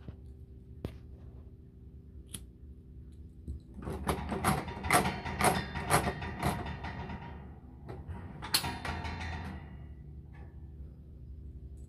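Kerosene heater's wick-adjuster knob being turned, a quick run of clicks and rattles for about three and a half seconds. Near nine seconds comes a short, sharper metallic rattle as the heater's wire guard is handled.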